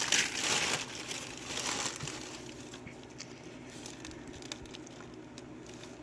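Packaging crinkling and rustling as it is handled and unwrapped, loudest for about the first two seconds, then fading to a few faint light clicks.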